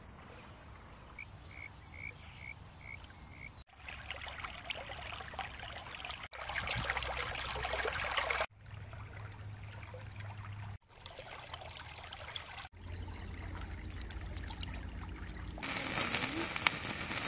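Shallow creek water running and trickling, heard across several short clips and loudest partway through. Five short high bird chirps come near the start. Near the end a wood fire crackles with sharp pops.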